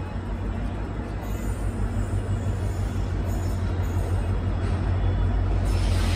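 Electric locomotive hauling a passenger train toward the listener: a low rumble that grows steadily louder.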